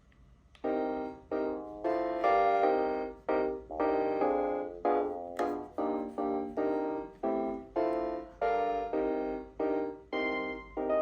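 Panasonic KX-TGD322 cordless phone playing a built-in melody ringtone: a run of piano-like electronic notes, each struck and fading, about two to three a second. The melody starts a little under a second in, after a brief silence.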